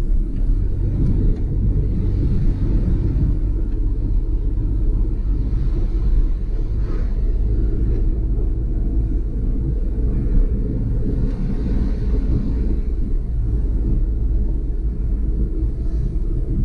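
Renault Kwid 800's three-cylinder petrol engine and tyres heard from inside the cabin: a steady low rumble while cruising at about 40 km/h.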